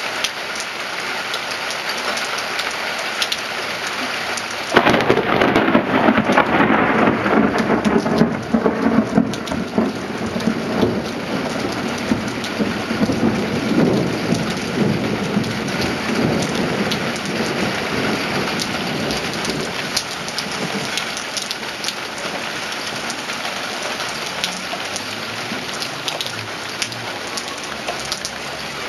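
Steady rain falling, with a sudden thunderclap about five seconds in that rumbles on loudly for several seconds and slowly fades back under the rain.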